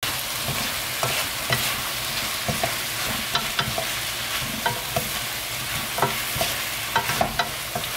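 Squid and vegetables stir-frying in a wok: a steady sizzle, with irregular scrapes and clacks of the spatula against the pan as the food is tossed.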